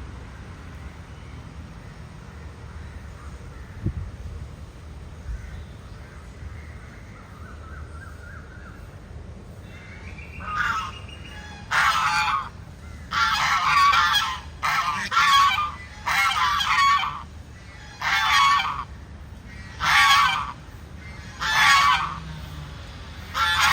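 A large bird calling over and over: after a quieter stretch, a run of about nine loud calls begins about ten seconds in, each lasting under a second and coming about every one and a half seconds.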